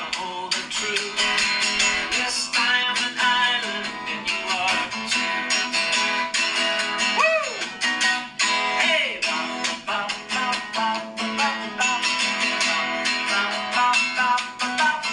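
Acoustic guitar strummed in a steady rhythm, playing a song without singing.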